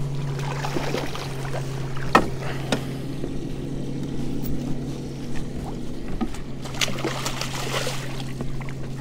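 A small motor humming steadily on a boat, with two sharp knocks about two seconds in and a burst of rustling noise around seven to eight seconds in.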